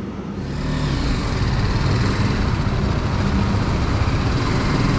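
BMW G 310 GS single-cylinder engine running as the motorcycle rides off slowly, getting a little louder in the first second or so and then holding steady.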